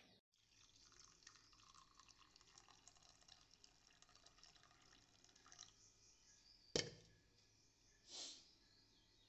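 Faint trickle of coffee being poured into a ceramic mug, followed by a single sharp knock about seven seconds in and a brief soft rushing sound a second later.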